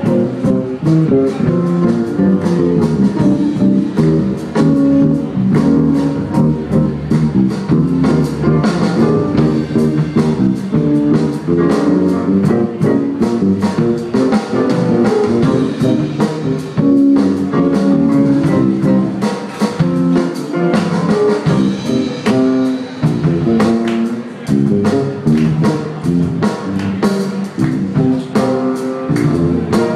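Live jazz band playing, with baritone saxophone, electric bass and drums keeping a steady beat.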